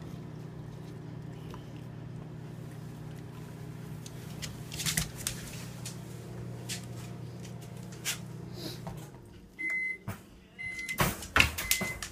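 Microwave oven running with a steady hum that stops about nine seconds in, followed by its high beeps about a second apart. A few sharp knocks and rattles come near the middle and near the end.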